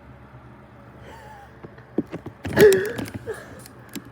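Scattered small clicks and rustles of hands handling things, over a low steady room hum, with one short voiced gasp-like vocal sound about two and a half seconds in.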